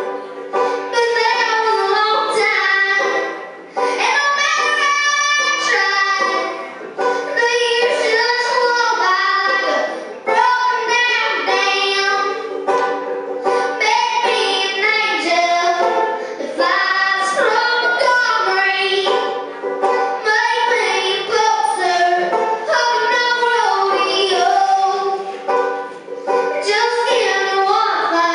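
A young girl singing a slow country-folk song, accompanying herself by strumming a ukulele.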